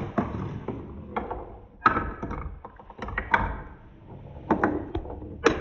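Marble-run balls rolling along wooden and plastic track, with a string of irregular wooden knocks and clacks as they drop onto the ramps and hit the joints.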